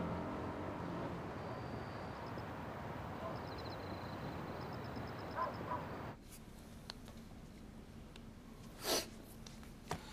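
Night city ambience: a steady hiss of distant traffic with faint, quick, high insect chirps. About six seconds in it cuts to quiet indoor room tone with a few small clicks and one short soft noise near nine seconds.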